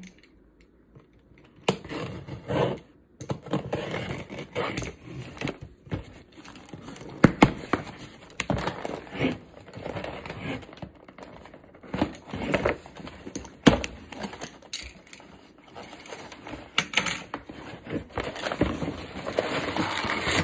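Cardboard shipping box and its packing material being handled and opened: irregular crinkling, rustling and tearing, with a few sharp knocks.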